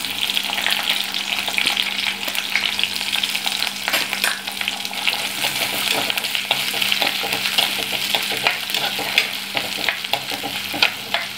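Sliced ginger, garlic and green chillies sizzling in hot coconut oil in a pot, a steady crackling hiss with scattered small pops. A spatula stirs them around, sautéing them until they wilt.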